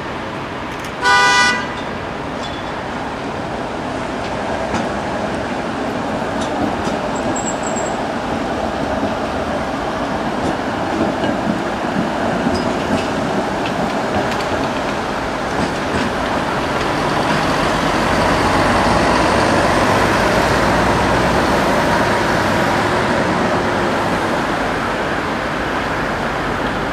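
A vehicle horn toots once, briefly, about a second in, over street traffic. An articulated tram and cars then pass, the running noise growing louder in the second half.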